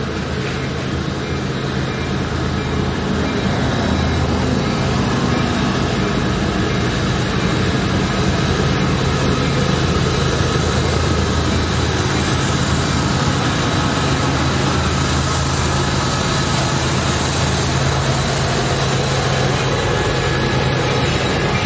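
Diesel locomotives of a BNSF double-stack intermodal train approaching and passing close, an EMD SD60M among them. The engines run with a steady low drone that grows gradually louder over the first several seconds as the train nears.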